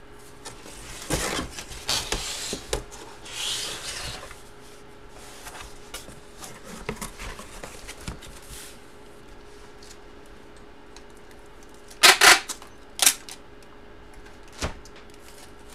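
Cardboard and paper being handled: rustling and sliding for the first few seconds. Then, after a quiet stretch, two loud sharp knocks about a second apart, with a third, smaller one shortly after.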